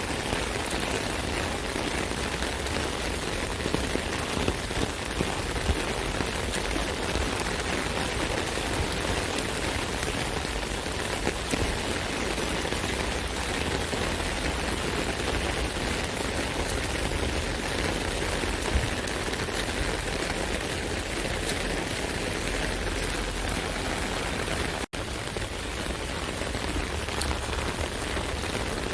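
Steady rain falling on an umbrella: a dense patter of drops with a few louder ones standing out. The sound breaks off for a split second near the end.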